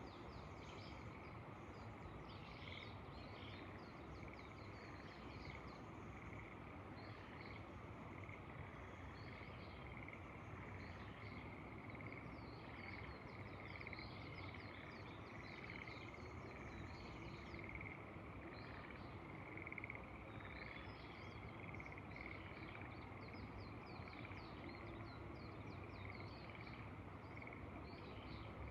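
Faint outdoor ambience: a steady chorus of frogs calling, with many short, quick bird chirps over it and a low rush of wind.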